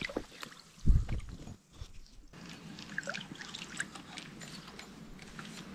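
Water trickling and dripping, with small splashes and one dull knock about a second in.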